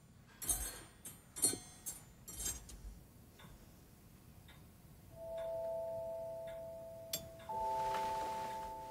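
Cutlery clinking against china plates a few times, then a soft ticking about once a second. Two bell-like chime tones follow about two and a half seconds apart, each ringing and slowly fading.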